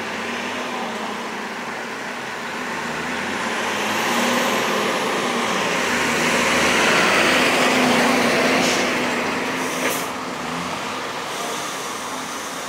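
A heavy truck drives past: engine and tyre noise swell to a peak about seven seconds in, then fade as it moves away.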